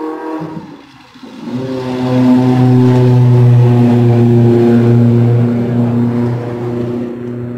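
Racing hatchback's engine passing on the circuit: a loud, steady engine note comes in about a second and a half in and holds at an almost unchanging pitch, dipping slightly near the end.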